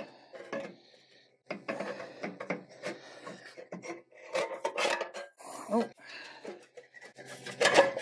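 New sheet-steel mower muffler scraping and clanking against the steel mower frame and engine as it is worked by hand up into its mounting position. After a brief pause about a second in, there are irregular metal knocks and rubbing scrapes.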